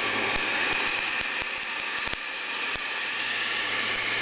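Berthoud 1600 W electric weed burner running as a blower: a steady rush of air with a low motor hum, its nozzle pushed into barbecue charcoal to fan the embers. Scattered clicks in the first three seconds.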